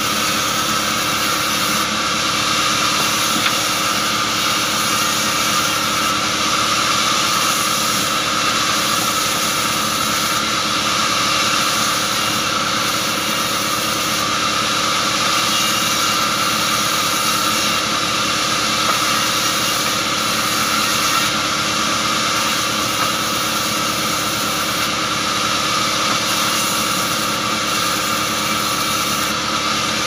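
Sawmill band saw running steadily while acacia logs are fed through it, a constant high whine over the machine's drone.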